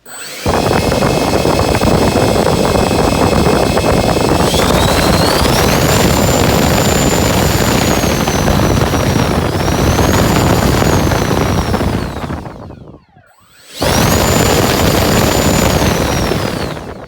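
80mm electric ducted fan of an RC MiG-21 jet run up under throttle: a loud rushing blast with a high whine that climbs as the throttle opens and holds near full power. It spools down almost to silence about thirteen seconds in, then runs up again and spools down near the end.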